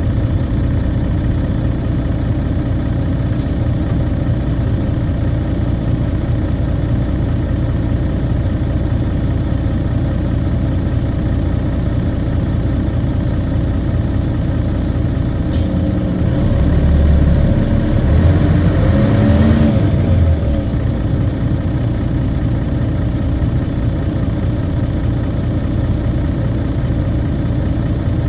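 Diesel engine of a Nissan Diesel KC-UA460NAN city bus running steadily with a low hum. About 16 seconds in, the engine note rises and swells with a gliding pitch for a few seconds, then settles back.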